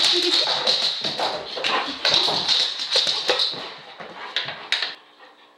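A dog moving about close by: a quick, irregular run of taps and clatters that stops about five seconds in.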